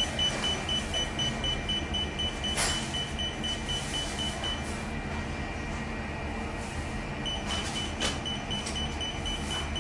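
808 nm diode laser hair-removal machine firing its handpiece: a rapid high beeping, about four beeps a second, signals the laser pulses being emitted. The beeping stops for a few seconds midway and then resumes, over the machine's steady hum, with a couple of soft clicks.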